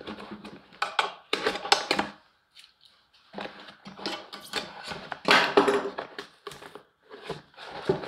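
Gloved hands pulling and working the cone and rubber surround of a blown Skar VD-12 12-inch subwoofer: irregular clicks, scraping and rubbing of the surround and cone, with a brief pause about two seconds in.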